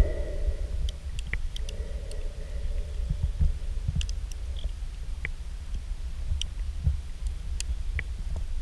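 Underwater ambience picked up by a diving camera: a steady low rumble with scattered sharp clicks, and a faint hum over the first few seconds.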